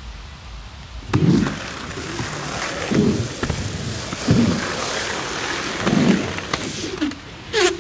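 Skateboard wheels rolling on concrete and up a quarter pipe, with a series of heavy thumps about every one and a half seconds. Near the end there is a short sound falling steeply in pitch.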